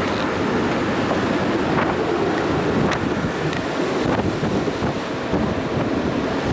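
Wind buffeting the microphone over the steady rush of sea water around a ferry under way.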